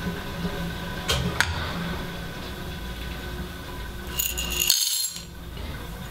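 A small stainless steel cup set down on a digital scale with a couple of sharp clicks, then whole coffee beans poured into it from a glass about four seconds in, a short rattling rush that makes the metal cup ring.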